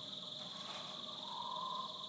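A steady high insect chorus drones, with a short bird call about one and a half seconds in.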